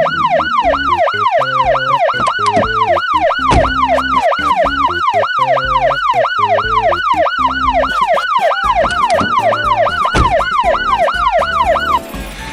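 Police siren sound effect in a fast yelp, its pitch sweeping up and down about two and a half times a second, until it cuts off near the end.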